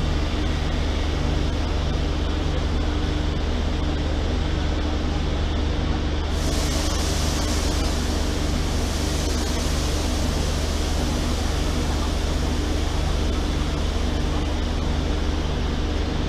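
Stationary WAP-4 25 kV AC electric locomotive's auxiliary machinery running: a steady low hum under a loud drone, with a tone that throbs a little faster than once a second. A high hiss joins about six seconds in.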